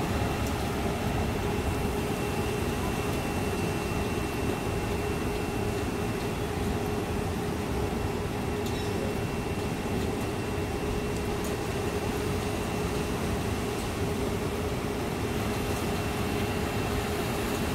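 Steady rush of heavy rain and floodwater running over the street, with a constant machine hum underneath.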